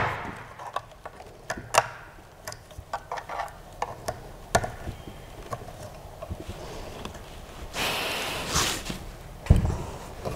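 Aluminium 3D-printer frame parts being handled and fitted together: scattered metallic clicks and knocks, a second-long scraping rustle a little before the end, then a heavy thump as the assembled gantry and base are set down on the glass table.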